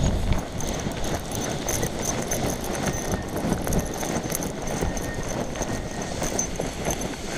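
Wind rushing over the camera microphone of a paraglider gliding low over dry grass just before landing. The rush is loudest at the start and eases off within the first half-second as the pilot slows, then carries on at a lower, steady level.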